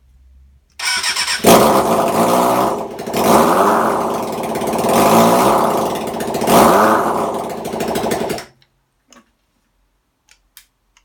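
Kawasaki ZXR inline-four motorcycle engine, with no exhaust fitted, cranks briefly and catches on choke. It runs with its revs rising and falling three times, then is switched off suddenly. The engine sounds healthy with the newly fitted carburettors.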